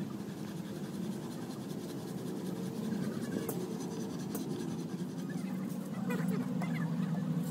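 A steady low hum with scratchy rubbing of a cloth and hands on excavator cab window glass.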